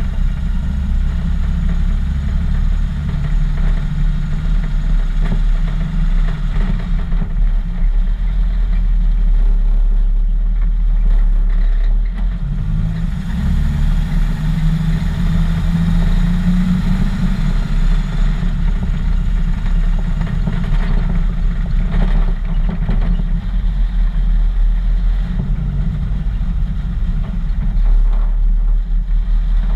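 Engine of a custom 1941 Chevrolet truck running with a steady low rumble. Its pitch rises somewhat about halfway through, then settles back.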